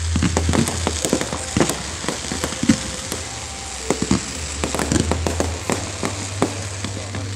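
Fireworks display: a dense, irregular run of bangs and crackles from bursting fireworks, over a steady low rumble.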